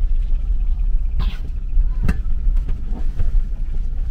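Steady low rumble of a vehicle moving along the road, with a couple of knocks about a second and two seconds in.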